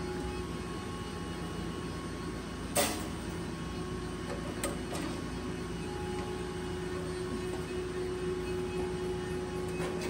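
Steady machine hum with a few held tones, broken by a sharp click about three seconds in and a fainter click near five seconds.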